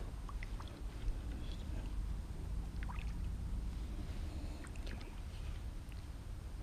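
A few faint, scattered small clicks and ticks of hands working a hook out of a kokanee salmon's mouth, over a steady low rumble.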